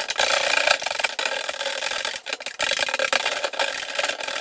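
Wooden stir stick scraping and churning through paint in a metal gallon can. It is stirred vigorously and without pause to mix the settled solids back into the liquid.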